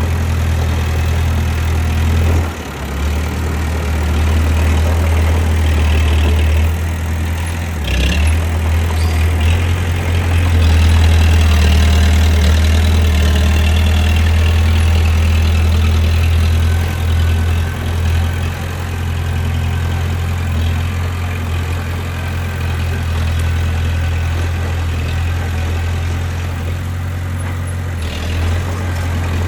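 Bulldozer's diesel engine running steadily with a deep, continuous hum that swells and eases a little, with a short sharp knock about eight seconds in.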